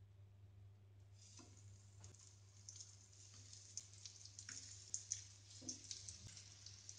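Coconut oil faintly sizzling and crackling on a hot flat griddle as semolina-coated breadfruit slices are laid in; it starts about a second in and grows busier, with a few soft taps as slices are set down.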